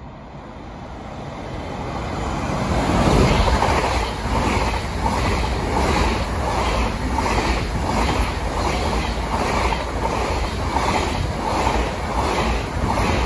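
Train approaching and running past on the tracks, growing louder over the first few seconds, then a sustained rumble with a regular clatter of wheels about one and a half beats a second as the cars go by.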